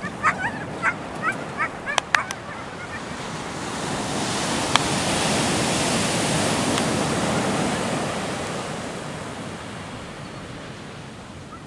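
Surf breaking on a beach: a wave builds, breaks and washes up the sand over several seconds, then fades. In the first couple of seconds there is a run of about six short high calls and two sharp clicks over the sea.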